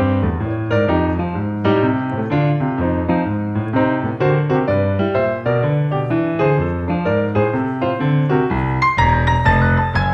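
Background piano music: a steady run of notes over low bass notes, growing fuller with a higher melody near the end.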